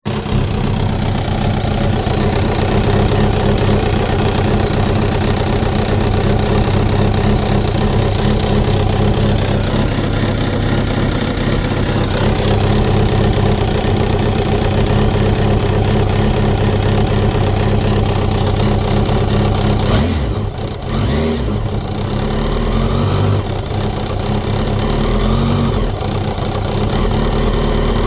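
Kawasaki ZX-10R (2005, first generation) inline-four engine idling with a knocking noise, with a few short light revs in the last third. The owner suspects the clutch basket's back springs; a new cam chain and tensioner and a valve adjustment have not changed the knock.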